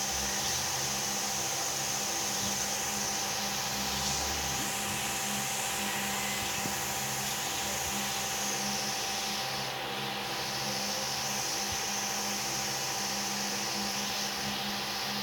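A small motor running steadily: an even whoosh with a constant low hum.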